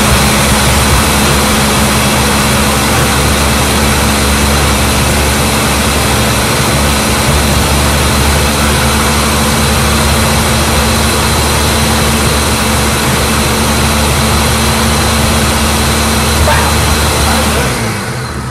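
Countertop blender motor running at full speed, grinding dry Hot Cheetos chips into crumbs with a loud, steady whir. It winds down near the end.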